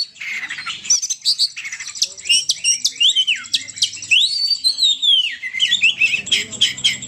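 Burung poci birdsong used as a trapping lure call: a rapid run of high whistled notes, rising and falling glides and quick chirps with almost no pause.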